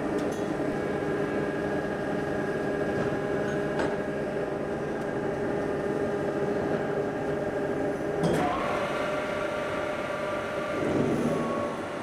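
Friction welding machine joining the two parts of a barbell sleeve: a steady machine hum, a sharp click about eight seconds in after which the hum changes pitch, then a louder swell near the end as the spinning part is pressed against the clamped one and the joint heats red.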